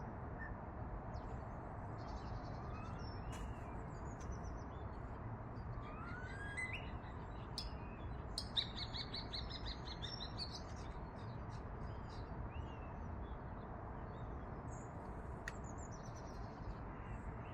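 Birds chirping and whistling in short, scattered calls, some rising in pitch, with a fast trill of rapid repeated notes a little past the middle, over a steady background hiss.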